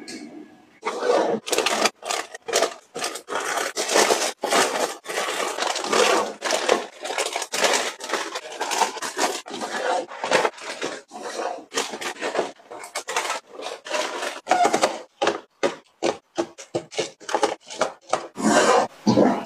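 Snack packaging being handled and set into a plastic storage drawer: crinkling wrappers and plastic cups tapping against the drawer and each other, in quick irregular bursts.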